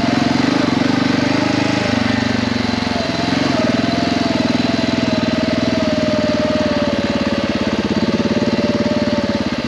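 Dual-sport motorcycle engine running while riding, at steady revs that ease slowly lower.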